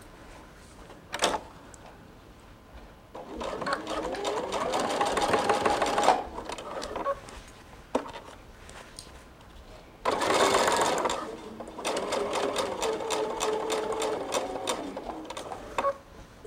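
Sewing machine stitching a seam in two runs: a first stretch of a few seconds, a pause with a click, then a longer run whose rapid, even stitch rhythm is loudest as it starts.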